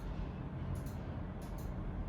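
Steady low room rumble with a few light, high clicks coming in small clusters, twice.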